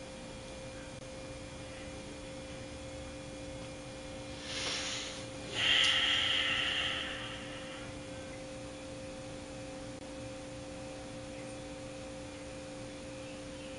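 Room tone with a steady, even hum. A short rush of noise comes a little past four seconds in, and a louder brief sound about six seconds in.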